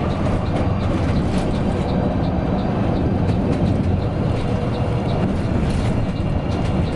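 Cabin noise of a coach bus on the move: a steady low engine and road drone, with light ticks and rattles from the interior scattered through it.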